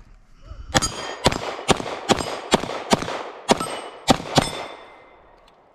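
A string of about nine rapid gunshots fired at steel targets over roughly three and a half seconds, several followed by the high, thin ring of a struck steel plate.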